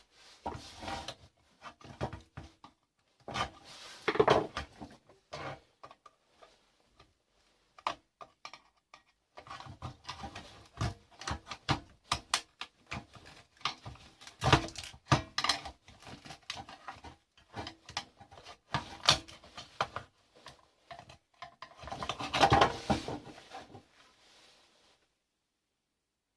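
Irregular clicks, clinks and rattles of small metal and plastic parts from an alarm control box being handled and pulled apart by hand. They come in spells with short pauses, the loudest spell near the end.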